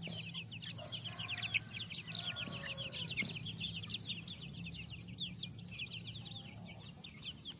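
Month-old chicks peeping: rapid, high, overlapping cheeps, many a second without a break.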